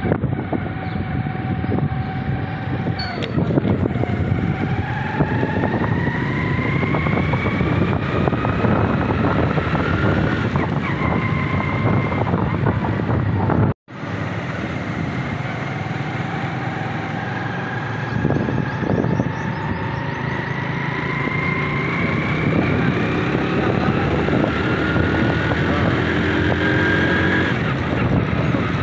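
A road vehicle's engine running on the move, under road and wind noise, its whine rising slowly in pitch over several seconds as it speeds up, twice over. The sound cuts out for an instant about 14 seconds in.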